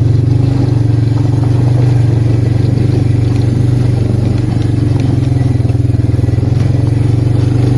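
Arctic Cat 366 ATV's single-cylinder four-stroke engine running steadily under way, with an even, fast firing pulse and no change in speed.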